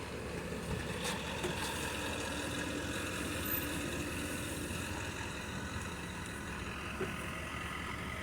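A steady mechanical running noise with a faint high whine held throughout, from a motor or machine.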